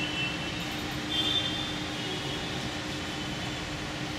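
Steady mechanical room hum with a constant low tone, with a brief faint high whine about a second in.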